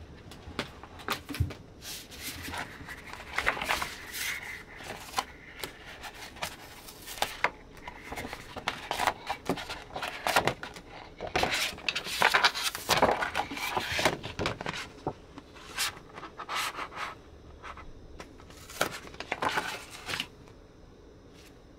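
Paper stickers being peeled off a sticky clear plastic cutting mat and handled: irregular crackling, rustling and light tapping of the flexing plastic sheet and sticker paper, busiest a little past the middle.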